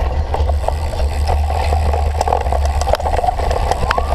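Wind buffeting the microphone of a cyclocross bike's onboard camera, with the rattle and clicks of the bike riding over rough ground. A steady high tone comes in near the end.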